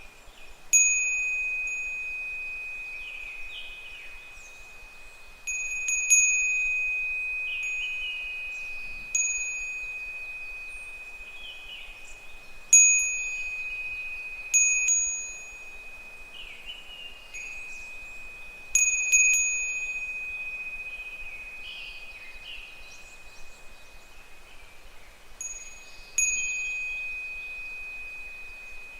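Japanese fūrin wind chime struck irregularly by the wind, about nine times, each strike a clear high ringing tone that fades slowly. Between the strikes, higurashi (evening cicadas) call faintly.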